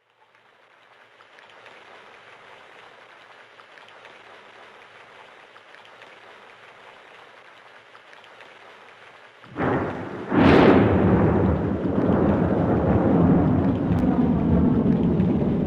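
Steady rain pattering, fading in at the start. About nine and a half seconds in, a sudden thunderclap cracks, followed by loud thunder rumbling on through the rest.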